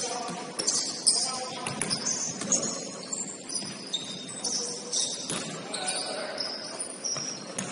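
Sneakers squeaking sharply and repeatedly on a hardwood court as basketball players move, with a ball bouncing now and then and players calling out.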